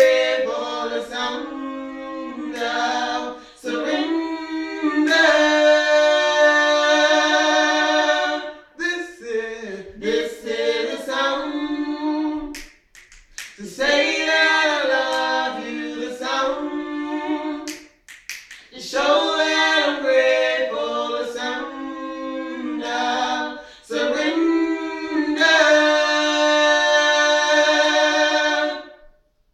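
A cappella vocal group singing a worship song in close harmony, with no instruments; the phrases end on long held chords.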